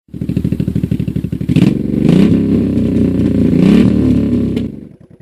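1985 Honda Shadow VT700C's V-twin engine running with an even pulsing beat, then revved up about a second and a half in, its pitch rising and falling twice. The revs drop back off suddenly near the end.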